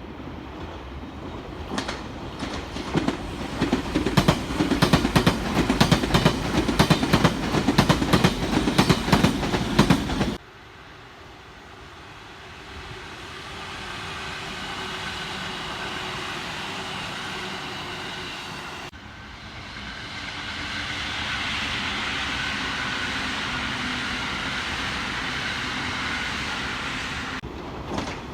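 Trains passing: loud wheel clatter over the rail joints for about ten seconds, then, after sudden cuts, a steadier running sound with a high whine, and clattering again near the end.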